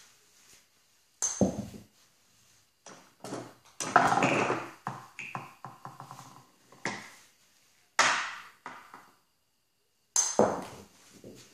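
A golf club strikes a ball off a rubber tee with a sharp, ringing ping about a second in and again near the end. Between the strikes, the plastic delivery arm of a pedal-operated golf ball dispenser clatters down and a ball clicks and rolls along it onto the tee, followed by a couple of knocks as the arm returns upright.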